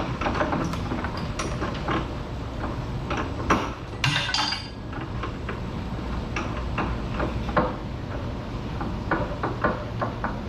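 Irregular metallic knocks and clinks of steel parts being handled and tapped, with a short scrape about four seconds in, over a steady low hum.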